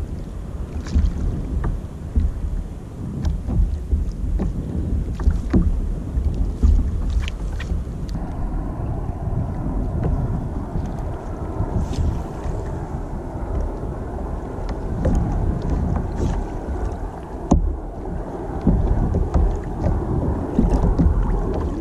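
Wind buffeting the microphone of a camera mounted on a sea kayak, a gusting low rumble, with water slapping against the hull in scattered sharp clicks; a steadier hiss of moving water joins about eight seconds in.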